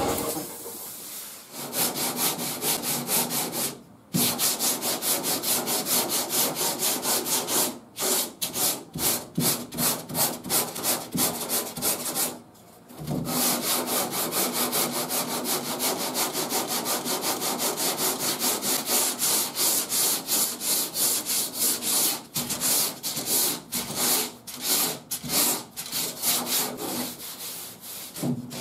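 Hand block-sanding of hardened body filler with coarse 40-grit paper on a sanding board: quick back-and-forth scraping strokes, several a second, with brief pauses about 4, 8 and 12 seconds in.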